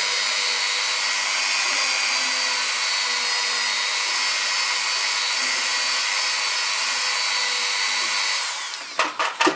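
Dremel rotary tool spinning a felt polishing wheel against a metal brake caliper piston, a steady high whine while it polishes off dirt. Near the end it is switched off and its pitch falls as it winds down, followed by a few short knocks.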